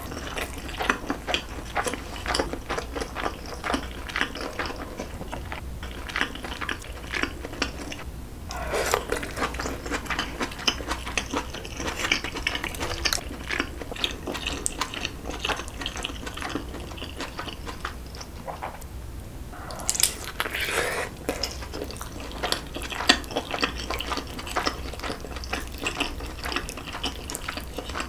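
Close-miked wet chewing and mouth smacking of a person eating soft, saucy food: braised aged kimchi with pork back ribs, a tteokgalbi patty and fried egg. The sound is a steady run of small wet clicks, with a couple of louder wet sounds about nine and twenty seconds in.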